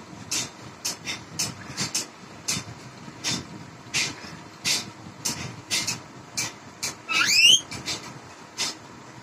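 A run of short sharp clicks and taps, about two a second, then about seven seconds in a parakeet whistles once: a rising glide, the loudest sound here.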